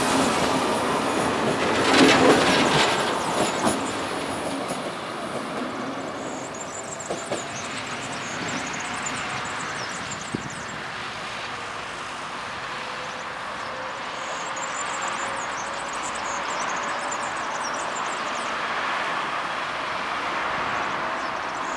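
ZSSK class 671 double-deck electric multiple unit passing close, its wheels clacking over the rail joints loudest about two seconds in. It then runs away along the line, leaving a steady rumble with a faint, slowly falling whine.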